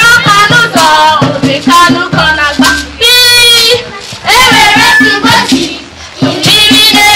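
A girl singing into a microphone over music with a steady beat, in short sung phrases with brief breaks between them.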